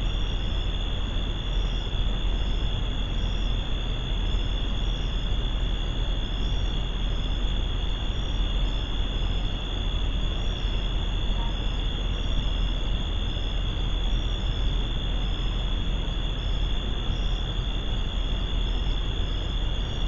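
Night insects, crickets or similar, chirping steadily in short repeated high notes over a constant hiss and low rumble.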